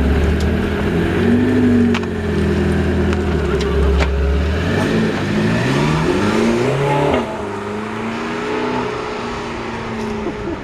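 A car's engine running, its pitch rising and falling, with a heavy low hum that fades about halfway through.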